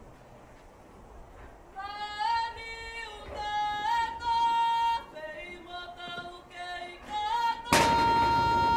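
A single high voice sings a slow solo call from about two seconds in, holding notes and sliding up into them. Near the end the group breaks in with a loud shout together while a high note is held on.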